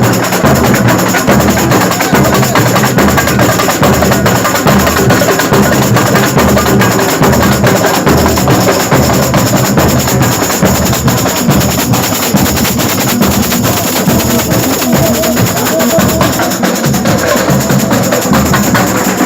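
A percussion group playing loud, continuous drum rhythms with sharp wooden clicking strokes among the drum hits.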